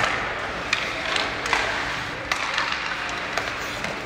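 Ice hockey play: skate blades scraping the ice, with a handful of sharp clacks of sticks and puck over the rink's steady background noise.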